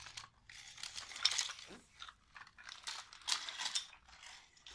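Plastic Imaginext Walking Croc toy pushed across a tile floor, its mechanism clicking and rattling in bursts of about a second each.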